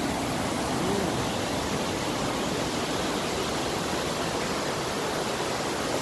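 Steady rushing of river water pouring over and between boulders in small rapids.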